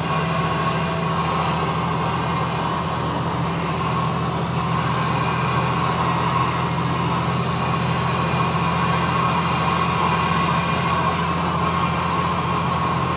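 Steady engine and road drone inside a vehicle's cab driving at highway speed, unchanging throughout.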